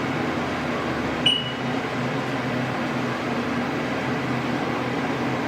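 Steady hum of a Haas TM-1P CNC toolroom mill running while its axes are jogged, with a short high beep from the control about a second in.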